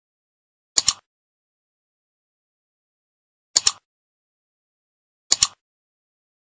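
Mouse-click sound effect of the animated cursor pressing on-screen buttons: three quick double clicks, about a second in, just past halfway and near the end, with dead silence between.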